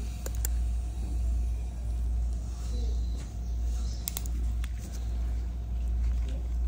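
A steady low hum, with a few faint, sharp clicks about half a second in and again around four seconds in from metal orthodontic pliers working elastic ties onto braces brackets.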